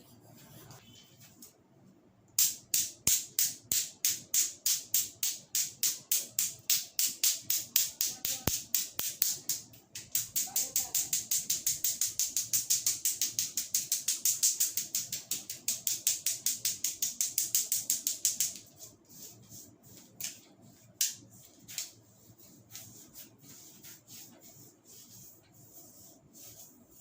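Rapid rhythmic strokes of a barber's hands on a client's head during a head massage, about four a second, quickening to about five a second, then stopping abruptly with only a few faint taps after.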